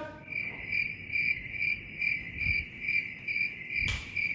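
Cricket chirping: a steady, high, pulsing chirp about twice a second, running unchanged across a cut in the picture, so it is an edited-in sound effect. A brief sharp noise comes near the end.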